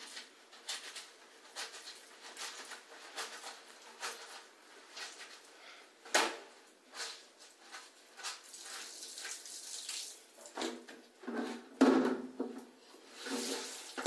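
Wet, soapy cloth being rubbed and squeezed by hand in irregular strokes while washing clothes, growing louder near the end.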